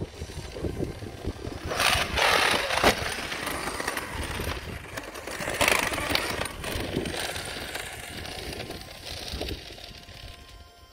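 Traxxas X-Maxx electric RC monster truck driving and accelerating over grass, its motor whining and its drivetrain grinding and rattling from damaged differential crown and pinion gears. It is loudest in surges about two and six seconds in, fading near the end.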